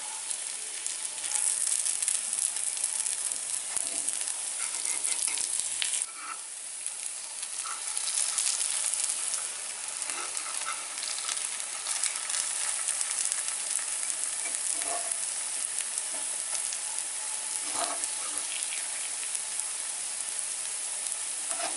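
Sweet little-millet paniyaram batter sizzling in oil in the pits of a paniyaram pan, a steady frying hiss. Scattered light clicks come as the paniyarams are turned over in the pan.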